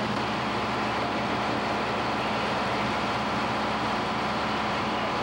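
Steady drone of fire apparatus engines running at a fire scene: an even wash of noise over a constant low hum, with no sudden events.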